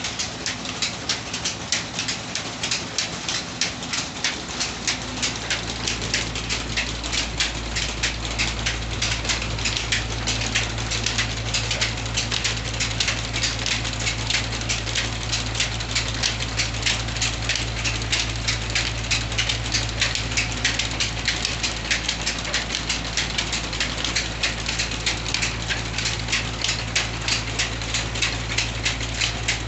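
Belt-driven stone flour mill (atta chakki) running on a 25 HP electric motor: flat belts and line-shaft pulleys turning with a quick, even ticking, over a low steady hum that grows louder about five seconds in.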